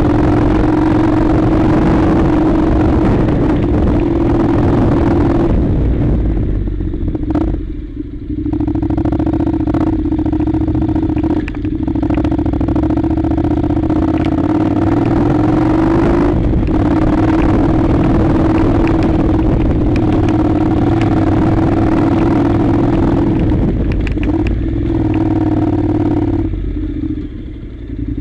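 Honda NC700's parallel-twin engine running steadily under way on a gravel track, with stones and loose parts clattering. The engine note drops off briefly a few times.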